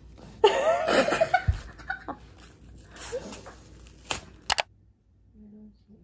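Plastic film wrapper of a convenience-store onigiri crinkling and tearing as it is pulled open, loudest about half a second in, followed by scattered rustles and clicks that cut off suddenly near the end.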